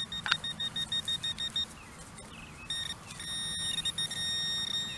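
Metal-detecting pinpointer signalling a buried metal target: rapid electronic beeping, about seven beeps a second, then after a short pause a steady tone as the probe sits on the target. A single light knock comes just after the start.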